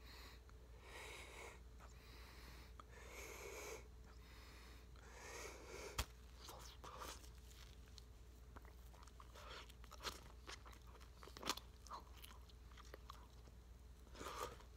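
Faint breathing behind a large bubblegum bubble, then a single sharp pop about six seconds in as the bubble bursts, followed by quiet wet chewing and lip smacks of a big wad of gum, with a few small clicks.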